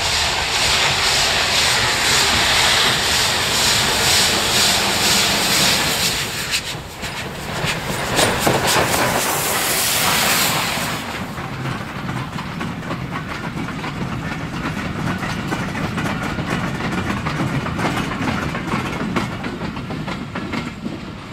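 HGS-class 2-8-0 steam locomotive working past with its exhaust beating and a loud hiss of steam, strongest a little before halfway. Then the freight wagons roll by with a steady clickety-clack of wheels over the rail joints.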